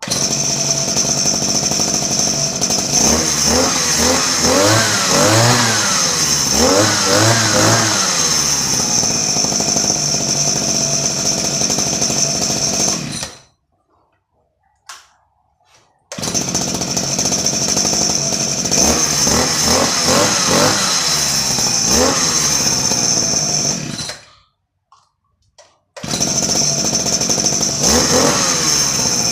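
Makita MEM25 brush cutter engine running at high speed with a steady high whine, revved up and down several times. The running breaks off twice for a couple of seconds and starts again abruptly.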